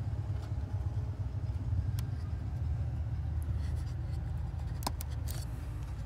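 A few sharp clicks and taps as fuses and needle-nose pliers are handled at a truck's under-hood fuse box, over a steady low rumble.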